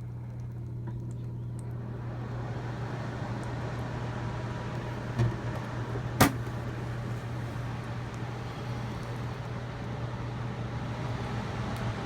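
Honeywell CHS122AE evaporative air cooler running, with a steady low hum under a broad rushing noise that grows from about two seconds in, and a sharp click about six seconds in. The owner takes this loud running noise for a fault that comes with the oscillation function and the water pump.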